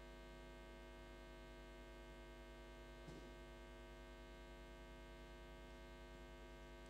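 Near silence apart from a steady electrical mains hum in the sound system, with a faint brief sound about three seconds in.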